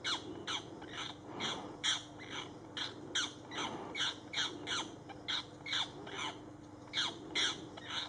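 Harsh bird squawks repeated about twice a second, each one sweeping down in pitch, from a hawk and a cuckoo locked in a fight.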